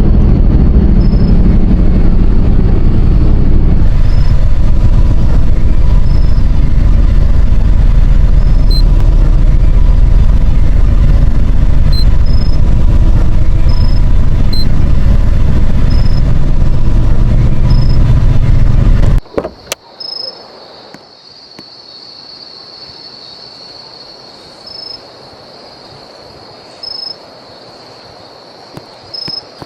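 Vehicle engine running close by, a loud steady low rumble that cuts off suddenly about nineteen seconds in. After it, a faint, steady, high insect chirping remains.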